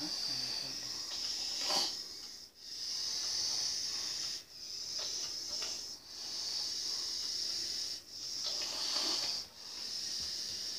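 A steady high-pitched hiss, broken by short dips every one and a half to two seconds.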